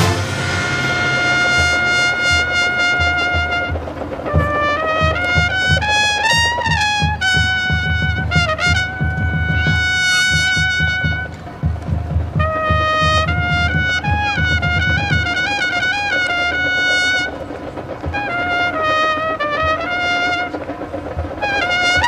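Marching band brass section playing a slow melody in long held notes and phrases, with a low beat beneath it that stops about two-thirds of the way through.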